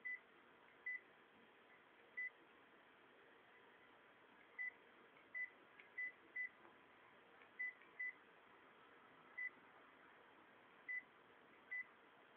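Key beeps from a WILLCOM WX11K mobile phone: about a dozen short, identical high beeps at uneven intervals as its keys are pressed.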